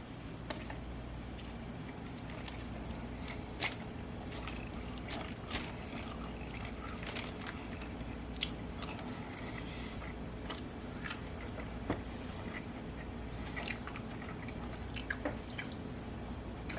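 Close-up mouth sounds of a person biting and chewing a bacon cheeseburger, with irregular sharp crunches and wet clicks, over a steady low hum.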